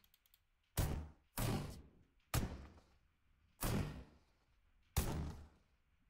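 AI-generated battle hit sound effects: five separate heavy thuds at uneven intervals, each starting sharply and dying away within about half a second.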